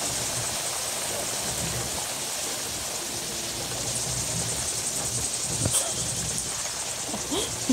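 Heavy rain falling steadily, a constant hiss, with a single knock about two thirds of the way through.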